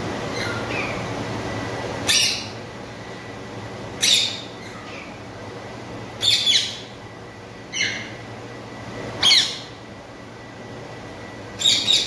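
Indian ringneck parrots giving short, sharp squawks: about six calls a second or two apart, two of them doubled, over a faint steady low hum.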